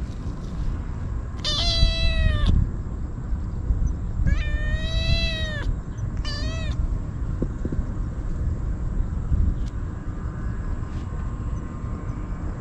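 A kitten meowing insistently: three high-pitched meows, the first two about a second long and arching up then down in pitch, the third short, over a steady low rumble.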